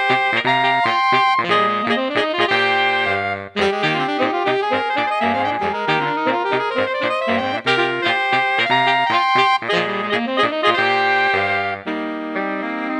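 Four-part saxophone quartet, all parts played on a Yamaha YDS-150 digital saxophone and layered: soprano, alto, tenor and baritone lines in a light, lively arrangement. The ensemble breaks briefly about three and a half seconds in, and the lowest line drops out near the end.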